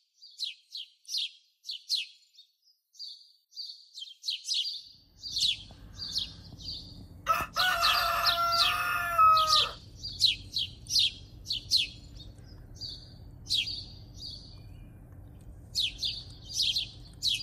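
Small birds chirping in short, quick notes, about two a second, with a rooster crowing once for about two and a half seconds, about seven seconds in; the crow is the loudest sound. A faint low hum comes in about five seconds in.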